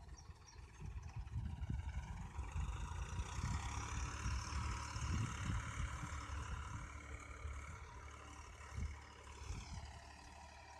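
Farmtrac 60 tractor's diesel engine running while it pulls a tiller through the field. It grows louder over the first few seconds and fades again near the end, as if the tractor comes close and moves off.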